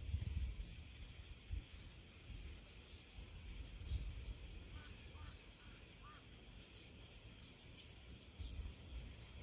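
Small birds chirping outdoors: short high chirps about once a second, with a few softer, lower call notes in the middle, over a steady high hiss and a low rumble.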